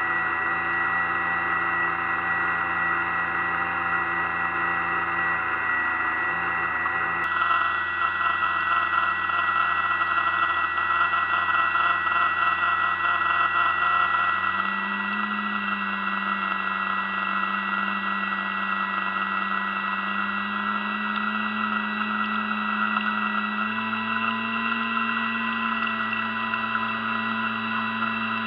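Electric drive motor of an RC scale fire boat running with a steady whine and hiss, heard through an action camera mounted on its deck. Its pitch steps up about halfway through and again a little higher near the end as the throttle is opened.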